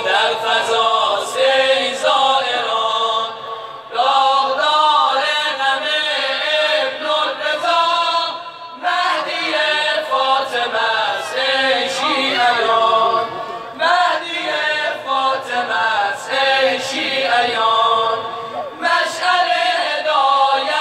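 A group of men chanting a religious song together in long, wavering sung phrases, with short pauses for breath between them.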